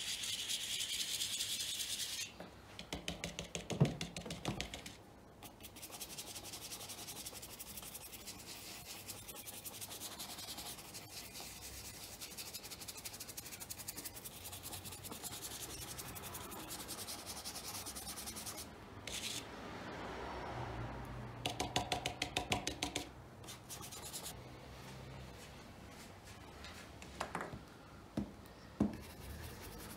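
Small shoe brush working colour-restoring cream into a faded leather shoe upper in quick, short strokes: a steady, scratchy rubbing. It is broken by a few knocks, a cluster of them a little past the middle.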